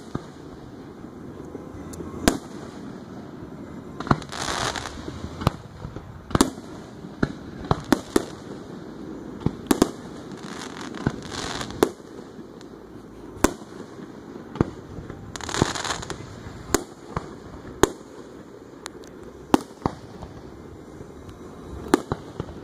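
Aerial fireworks display: a string of sharp bangs from shells bursting overhead, one every second or two, with two longer rushing stretches of noise about four and fifteen seconds in.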